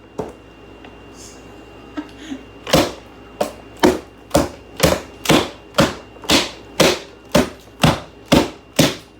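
A steady series of sharp knocks, about two a second, beginning about three seconds in and keeping an even pace.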